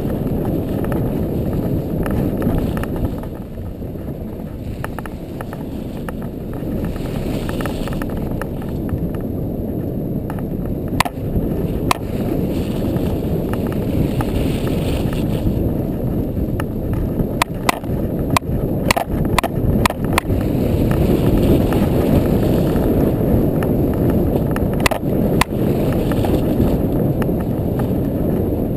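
ATV driving over snow: a muffled, steady rumble of engine and tyres, with scattered sharp knocks and clicks that come thickest in the second half.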